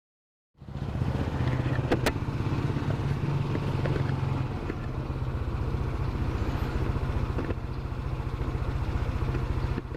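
Yamaha NMAX scooter's single-cylinder engine running steadily with road and wind noise, cutting in abruptly about half a second in; a single sharp click about two seconds in.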